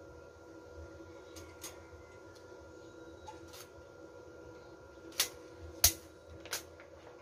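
Sharp metallic clicks and clinks from a steel rebar column cage and its stirrups being handled and marked, about half a dozen of them, the loudest about six seconds in, over a faint steady hum.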